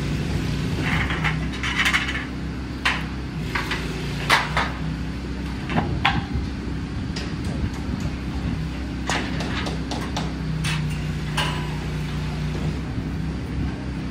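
A steady engine hum with many scattered metallic clinks and knocks across it.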